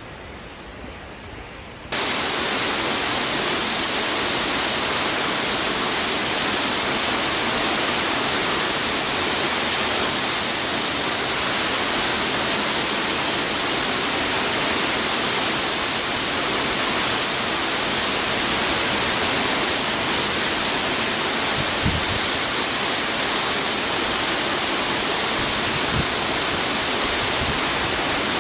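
Loud, steady rushing of a waterfall plunging into a pool. It cuts in suddenly about two seconds in, after a quiet start.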